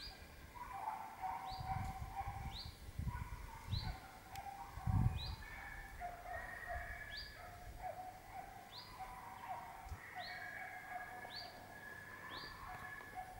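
Podengo hunting dogs baying in the distance, faint drawn-out calls that break off and start again, typical of hounds giving tongue on a rabbit's trail. A small bird repeats a short high call about once a second, and a low thump comes about five seconds in.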